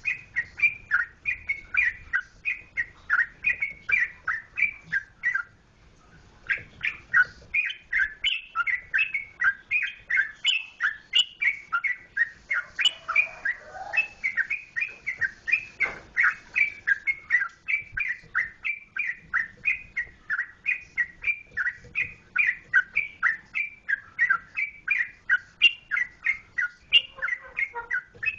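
Yellow-vented bulbul (trucukan) singing without pause: a fast run of short, bubbly, sweeping notes, about three a second, breaking off briefly about six seconds in before carrying on.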